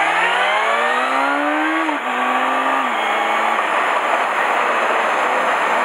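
Honda Hornet 250 motorcycle's inline-four engine revving up under acceleration, its pitch rising steadily, then dropping sharply about two seconds in. The lower note holds for a moment before the engine fades into a steady rush of wind and road noise.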